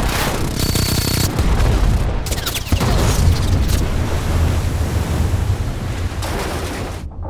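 Film battle sound effects: a run of loud explosions and deep rumbling blasts as missiles are blown up just above a surfaced submarine. The blasts cut off abruptly near the end.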